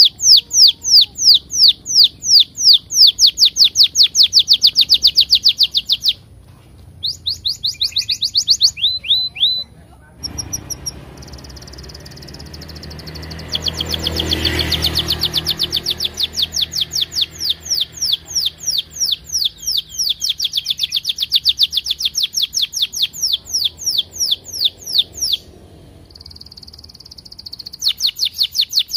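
An orange domestic canary sings long runs of sharp repeated chirps, about five a second, broken by brief pauses and short buzzy trills. A low rushing noise swells and fades around the middle.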